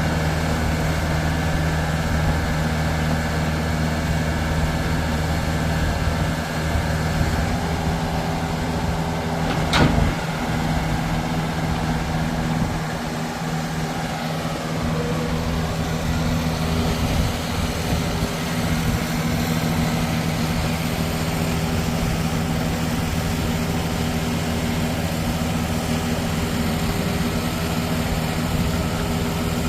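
The engine of a 1998 R M Johnson E-Z Log Baler Model 5 running steadily, with one sharp bang about ten seconds in.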